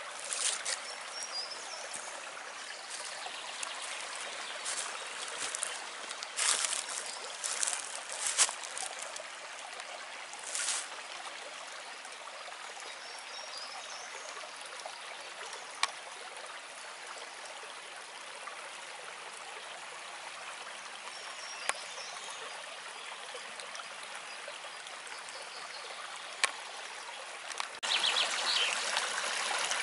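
Shallow woodland brook babbling and trickling over stones, growing louder near the end as it comes closer. A few brief rustles or knocks in the first ten seconds, and a few faint bird chirps.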